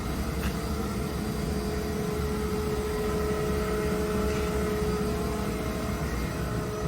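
KAESER ASD 50 T SFC 25 kW inverter-driven rotary screw air compressor running: a steady low hum with a faint, even whine on top.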